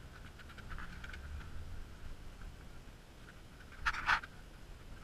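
Faint scratching and scraping on the freshly poured concrete lid of a borehole pit, with two louder scrapes close together about four seconds in.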